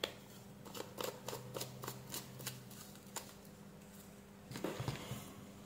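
Faint irregular clicks and ticks of a plastic Pelican 7060 tactical flashlight being twisted together and handled, over a faint steady hum.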